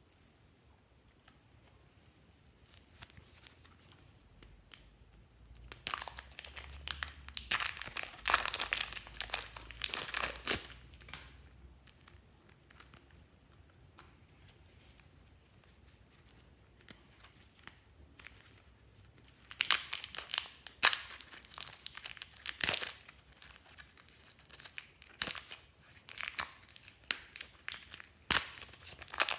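Thin plastic bag crinkling and tearing by hand in several bursts as blocks of soft clay are unwrapped. There is a long burst about a quarter of the way in, another about two-thirds in, and shorter crinkles near the end.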